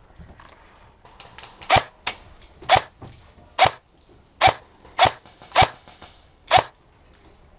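Ares Amoeba AM-013 electric airsoft rifle firing seven single semi-auto shots, each a short sharp crack. The shots come about a second apart at first, then in a quicker pair, then one more.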